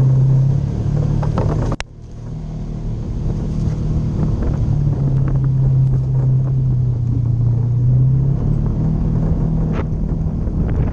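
Polaris RZR 900 side-by-side's engine running, its sound cutting out abruptly just before two seconds in and building back within about a second to a steady run with small shifts in pitch. A few short knocks come through near the end.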